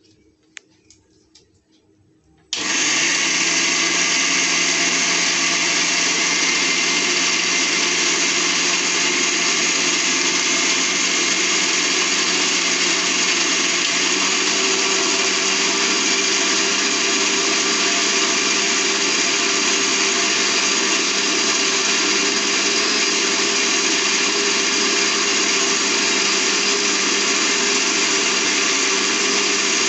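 Electric mixer grinder with a steel jar, switched on about two and a half seconds in and running with a steady, loud motor whine. Its pitch steps up slightly about fourteen seconds in, as the speed knob is turned.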